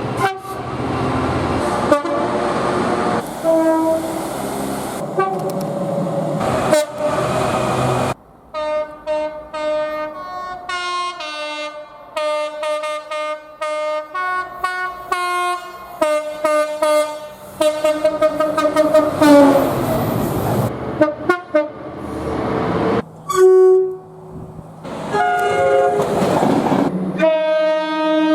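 Train horns sounding in a string of short recordings: many short blasts, mostly a chord of several notes at once, with the pitch changing from blast to blast. For long stretches the horns sound over the noise of a train running past, and a longer held chord comes near the end.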